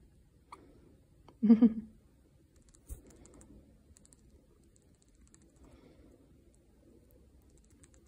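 Java sparrow nibbling at the toggle buttons of a fleece garment, its beak making faint, irregular small clicks. A woman's voice is heard briefly about a second and a half in, louder than the clicks.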